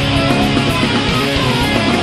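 Music with guitar: dense, steady, distorted-sounding guitar playing with some sliding notes.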